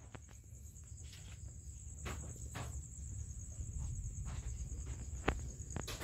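Crickets trilling steadily: a high, fast-pulsing chirr over a low rumble. There are a few soft taps and knocks, around two seconds in and again near the end.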